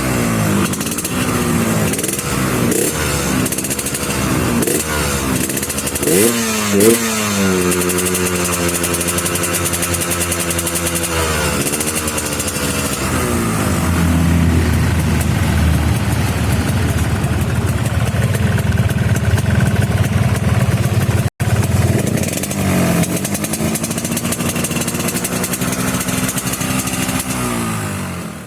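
Yamaha RX-King's two-stroke single-cylinder engine being revved through a rebuilt exhaust silencer with a drilled stainless core. It starts with a run of quick throttle blips, then holds higher revs for a few seconds before dropping back to a low steady run. It rises again and holds before falling back near the end.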